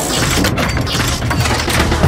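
Start of an animated channel intro sting: a loud, dense rush of noisy sound effects with low music tones beneath it.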